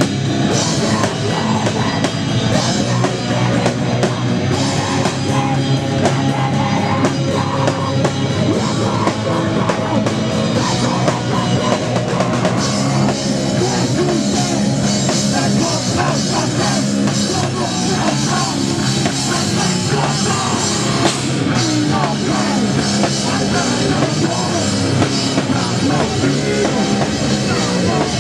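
Live rock band playing loud, heavy rock on electric guitar, bass guitar and drum kit, without a break.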